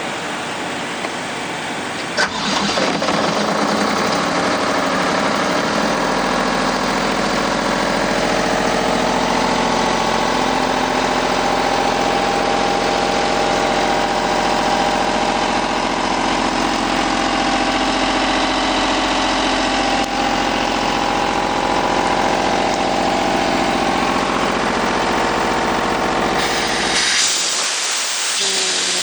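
Atlas Copco XAS97 portable air compressor's diesel engine catching about two seconds in, then running steadily. Near the end the engine's low hum drops away, leaving a hiss.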